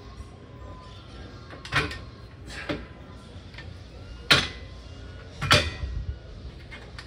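Metal gym weights clanking with repetitions of a leg exercise: four sharp clanks at uneven gaps of about one to one and a half seconds, during a drop set worked toward failure.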